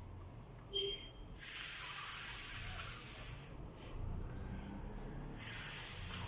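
A woman making two long hissing speech sounds, "sss"/"shh", as Ling-sound drills for a child's speech therapy. The first lasts about two seconds, and the second starts near the end.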